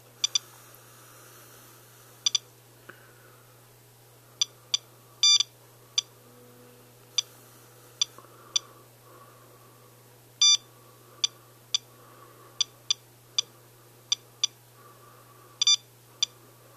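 Handheld radiation dosimeter beeping at irregular intervals, about twenty short sharp beeps with a few longer ones. It is registering radiation from a rain sample wiped off a windshield, while its reading climbs to about 0.5 µSv/h, flagged as high radiation background. A faint steady low hum lies underneath.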